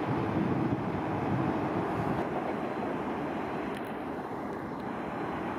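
Jet airliner engines at taxi power, heard from a distance as a steady, even noise.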